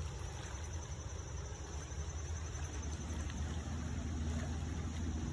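Gusty wind buffeting the microphone, a steady low rumble with no speech over it.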